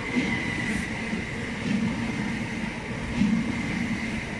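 Great Western Railway electric multiple unit running past close along the platform, its wheels clattering over the rail joints in an uneven rhythm under a steady high whine.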